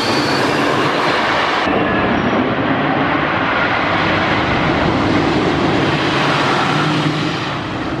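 Custom Coasters International wooden roller coaster train running along its track: a loud, steady rumble, easing somewhat near the end.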